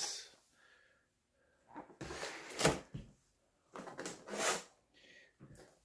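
Rigid clear plastic clamshell food containers handled and set down on a wooden table: two short spells of plastic rustling and light knocks, one about two seconds in and another about four seconds in.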